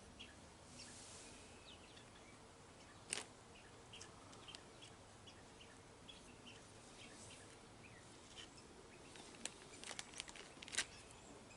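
Quiet room with scattered faint clicks and taps of small parts being handled during carburetor work. The loudest click comes about three seconds in, and several more cluster near the end.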